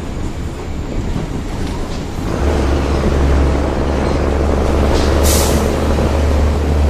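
City bus's diesel engine running hard: a deep, steady drone that grows louder about two seconds in and holds. A short hiss of air cuts in about five seconds in.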